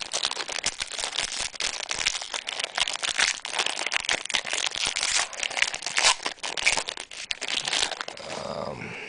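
A trading card pack's wrapper crinkling and crackling as it is handled and opened, in dense irregular bursts that ease off near the end.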